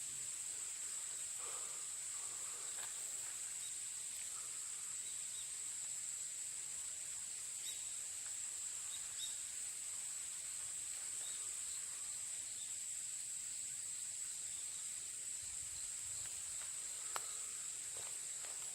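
Steady, high-pitched chorus of insects such as crickets, holding one shrill unbroken pitch, with faint scattered higher chirps. A single sharp click sounds near the end.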